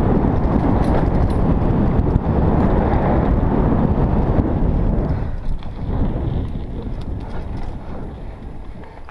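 Wind buffeting the helmet-camera microphone and the mountain bike's tyres rumbling over a dirt forest trail at speed. About five seconds in the noise begins to fade as the bike slows on a steep climb.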